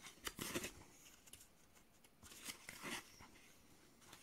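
Faint rustling of a book's paper pages being handled, in two short spells: about half a second in, and again around two and a half seconds in.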